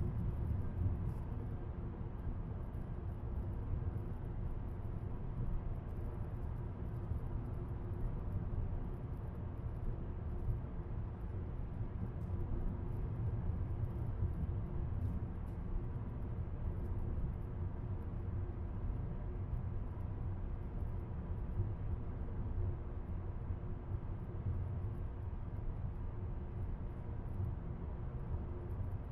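Car driving at a steady speed: a steady low rumble of road and engine noise, with no change in speed.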